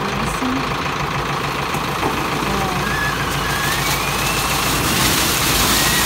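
Tractor engine running steadily while the trailed corn picker's hopper tips up. From about five seconds in, a growing rush and rattle of corn cobs tumbling out of the hopper onto the pile.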